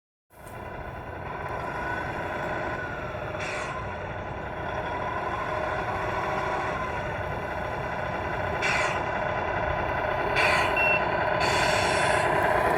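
A large truck running steadily and slowly getting louder, with three short hisses along the way.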